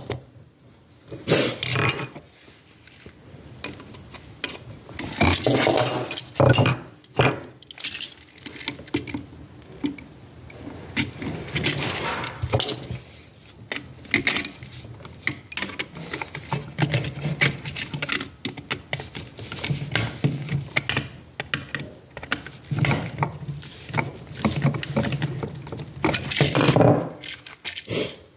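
Irregular clicks, scrapes and metallic rattling from hand work with a screwdriver at an electrical outlet box, with tools, screws and wires handled in gloved hands.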